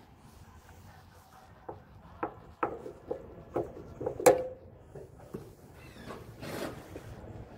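Vinyl siding panel being handled by hand after a saw cut: a string of light plastic knocks and clacks as the cut piece is pulled apart and moved, the loudest about four seconds in, then a brief rustle near the end.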